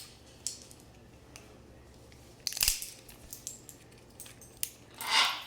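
A parrot cracking seeds with its beak: scattered sharp cracks and crunches, with a small cluster about halfway through. A louder, longer burst of sound comes near the end.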